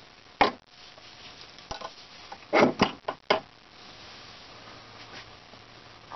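A steel square and steel ruler being set down and shifted on an aluminium plate: a sharp metal clack, then a quicker cluster of four or five clinks and knocks about halfway through.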